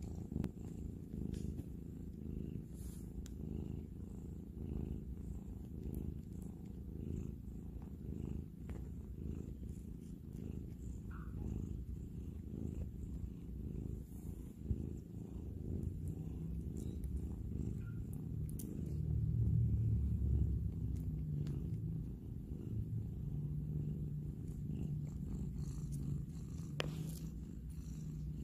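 A cat purring steadily and close up, swelling louder for a couple of seconds about two-thirds of the way through.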